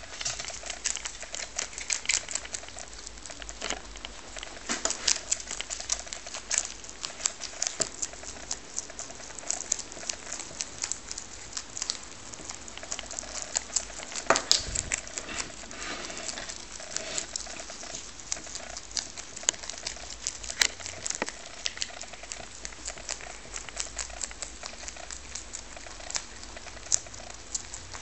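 Two lop-eared rabbits chewing savoy cabbage leaves: a fast, irregular run of crisp little crunches and nibbling clicks, with a louder crackle about halfway through.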